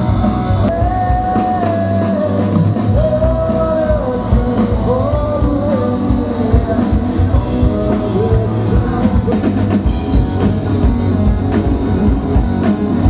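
Rock song with a singer over electric guitar and a drum kit.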